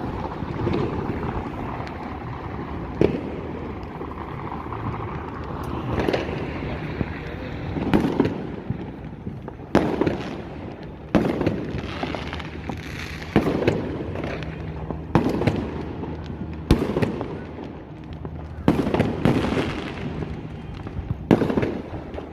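Fireworks bursting overhead: a run of sharp bangs every second or two, spaced out in the first few seconds and coming more regularly after that, over a steady background of noise.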